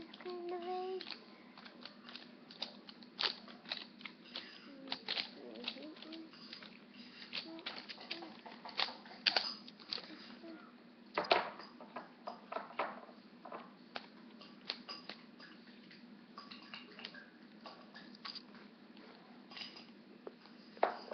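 A plastic Easter egg and its wrapping being handled and worked open: irregular small clicks, taps and crinkles, with one sharper click about eleven seconds in.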